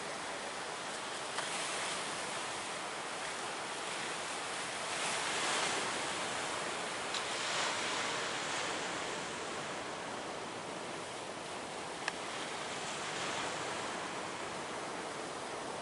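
Big ocean waves breaking as surf: a steady, rushing wash that swells louder a few times as waves come in.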